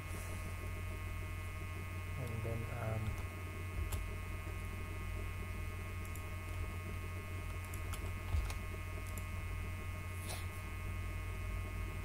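Steady electrical mains hum with a constant whine of several high tones from the recording chain, and a few faint clicks scattered through it.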